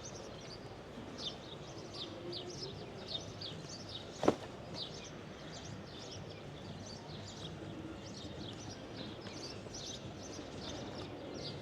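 Small birds chirping over steady outdoor background noise, with short high chirps coming a few times a second. A single sharp knock about four seconds in is the loudest sound.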